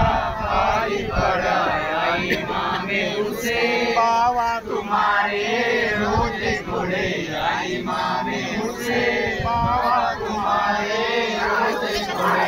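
A crowd of men chanting together in a Muharram procession chant, many voices overlapping in a rising and falling line, with a few dull low thumps now and then.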